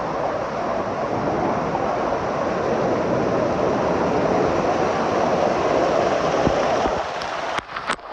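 Water-park wave pool: a steady roar of rushing, churning water that drops off about seven seconds in, followed by a few sharp clicks.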